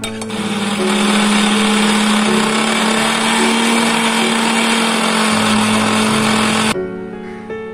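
Electric mixer grinder running, grinding mint leaves and raw mango into chutney paste. A loud steady motor hum with a rushing whir starts just after the beginning and cuts off suddenly about a second before the end.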